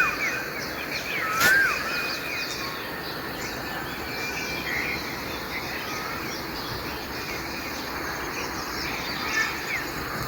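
Morning bird chorus: many small chirps and calls from several birds over a steady background hiss, with two louder up-and-down whistled notes near the start, about a second and a half apart.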